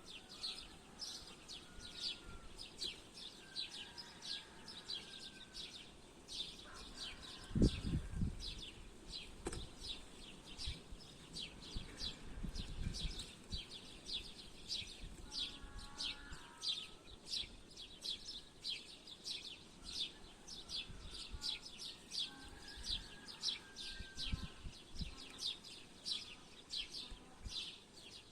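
Songbirds calling: one bird repeats a short, high, falling chirp about twice a second without pause, while softer, lower warbling phrases from other birds come and go. A few low thumps or rumbles break in, the loudest about eight seconds in.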